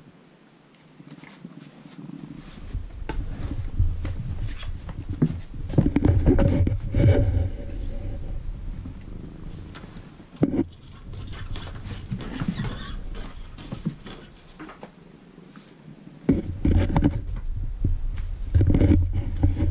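A domestic cat brushing and bumping against the camera up close: irregular fur scuffs and knocks on the microphone over a low rumble. The rumble starts about two seconds in, eases off for a moment and comes back strongly near the end.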